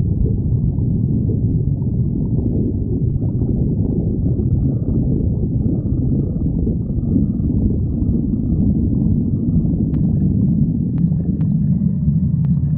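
A person's stomach growling: a continuous low gurgling rumble, with a few faint clicks near the end.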